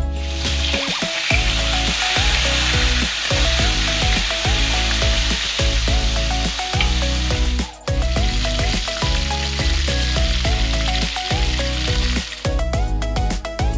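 Whole bigeye scad frying in hot oil in a wok: a steady sizzle that breaks off briefly near the middle, resumes, and stops shortly before the end. Upbeat background music with a steady beat plays under it.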